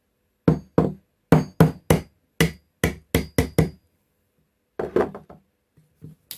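A hammer tapping a small wood chisel into a board, about ten quick strikes, then a few more after a short pause. The chisel is being driven in to lift a small sliver of wood where a screw will be hidden.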